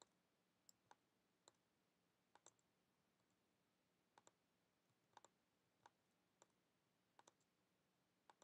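Faint computer mouse clicks, about fifteen of them, scattered singly and in quick pairs like press-and-release, as on-screen path handles are clicked and dragged. Near silence between the clicks.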